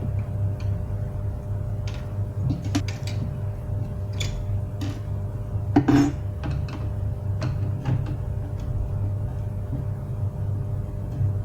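Scattered light clicks and knocks of hard objects being handled, over a steady low hum; one louder knock about six seconds in.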